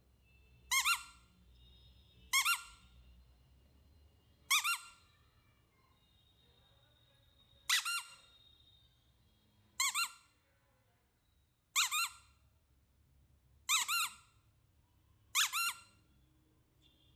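A squeaky toy squeezed eight times, each a short, high double squeak, about every two seconds.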